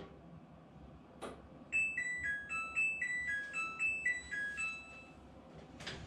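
Midea washer-dryer playing its end-of-cycle tune, a short melody of about a dozen electronic beeps lasting some three and a half seconds, after a faint click about a second in. The tune signals that the spin cycle has finished.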